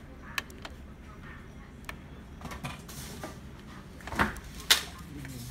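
Scattered clicks and knocks from fingers pressing buttons on an HP Laser MFP printer's control panel, with two louder knocks about four seconds in, as the power button is pressed.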